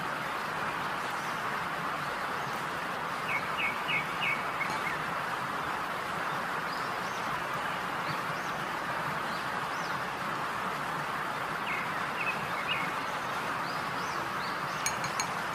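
Steady background hiss, with small clusters of short, high chirps a few seconds in, again around the middle and at about twelve seconds, and a couple of sharp clicks near the end.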